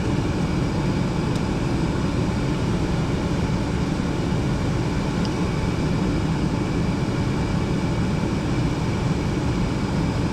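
Gas furnace running steadily: its blower and draft-inducer motors make an even rush of air and motor noise.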